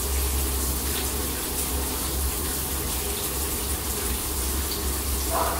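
Steady rushing noise over a low hum, unchanging throughout.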